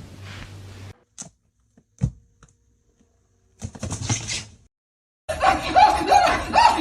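A few soft knocks and a brief rustle, then, from about five seconds in, an animal giving loud, repeated rising cries, about three a second.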